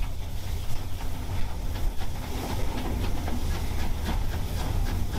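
Steam locomotive and its train rolling slowly along the line, heard from aboard: a steady low rumble with repeated clicks of the wheels over the rail joints and a hiss of steam.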